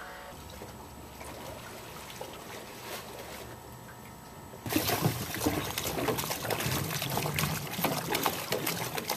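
Harbour water lapping and trickling against the hulls of moored sailboats at a dock, faint at first and much louder and splashier from about halfway through.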